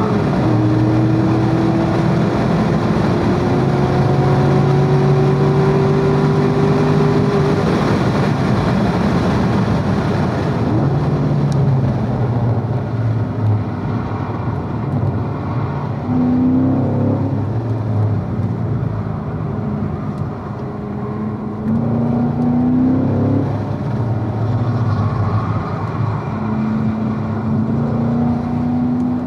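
2016 Corvette Z51's 6.2-litre V8 heard from inside the cabin at speed on track, pulling high in the revs for the first several seconds. The revs then drop away as it brakes and slows for the corners, followed by several shorter rises in pitch as it accelerates out of them.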